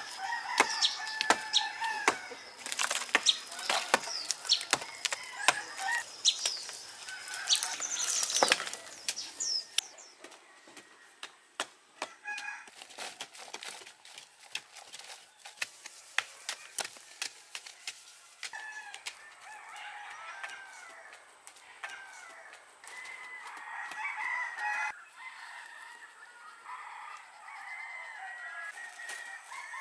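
Chickens clucking, with a rooster, over repeated sharp knocks and scrapes of hand tools striking packed earth and rubble. The knocks come thick and fast at first and thin out later, while the clucking grows stronger in the second half.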